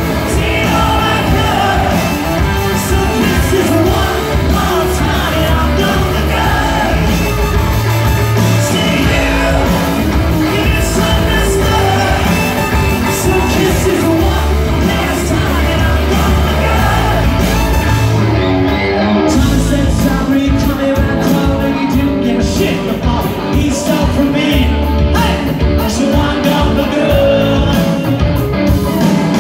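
Live rock band playing loudly, with electric guitars, drums and a lead singer, heard from among the audience in a club hall.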